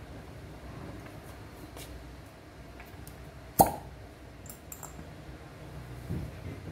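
A glass fire-cupping cup pops once against the skin of a back about halfway through, a sharp pop with a brief glassy ring. A few faint light clicks of glass come around it.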